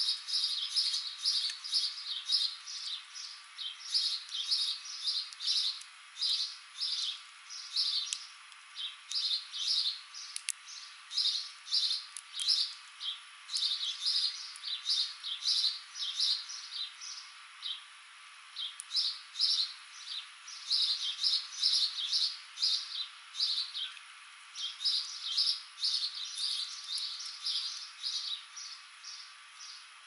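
Small songbirds chirping: short, high chirps in quick runs of several at a time, with brief pauses between runs.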